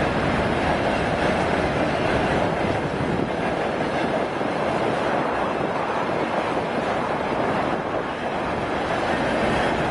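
Freight train of gondola wagons and tank cars rolling across a steel truss railway bridge: a steady noise of wheels on rail.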